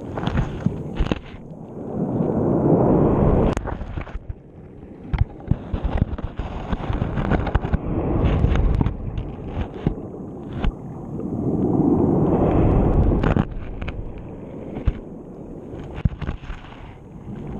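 Underwater sound from a GoPro dragging along the sea bed: a low rushing surge swells and fades three times, with many sharp clicks and knocks as the camera strikes and scrapes the bottom.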